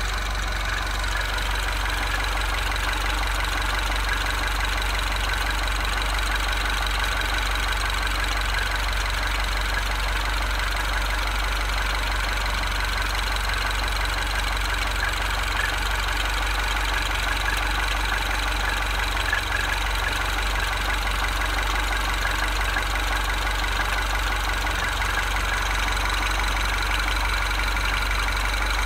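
Engine idling steadily, with no revving or change in speed.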